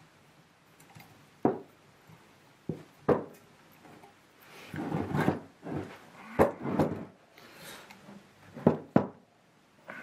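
Irregular clicks and sharp knocks with short scraping rubs from hand tools worked on a Volvo Penta S120 saildrive leg: locking pliers clamped to a long bar, turned and levered by hand. A stretch of rubbing and scraping falls in the middle, between several sharp knocks.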